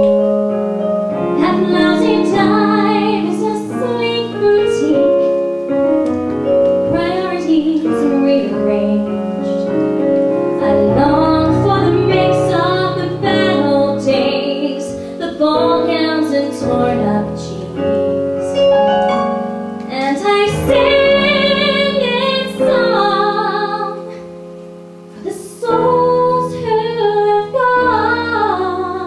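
Female voices singing live: a female soloist with a women's choir, over held accompanying notes.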